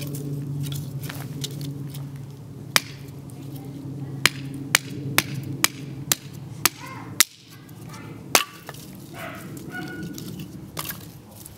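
Japanese nata, a thick chisel-edged chopping blade, chopping small branches: sharp wooden chops, with a run of about eight strikes roughly twice a second in the middle and a few single chops around it. A steady low hum underneath cuts off suddenly about seven seconds in.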